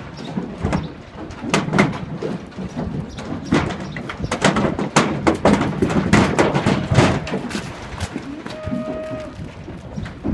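Holstein cows' hooves clattering down the stepped ramp of a livestock truck: many sharp, irregular knocks in quick succession that thin out near the end, when a brief steady tone sounds.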